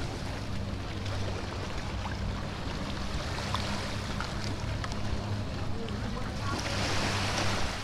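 A boat engine running steadily at a low hum, with waves washing on the shore and a louder surge of surf near the end.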